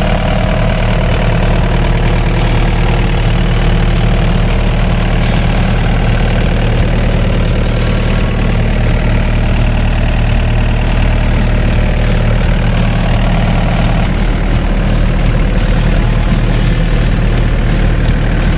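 Diesel engine of a Lonking LG6075 crawler excavator idling steadily, its note shifting slightly about fourteen seconds in.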